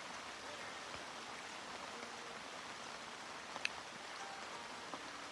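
Steady rain falling, with one sharp tap a little over halfway through.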